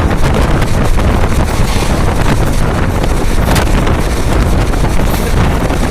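Wind buffeting the microphone on a moving express passenger train, over the train's running noise, steady and loud.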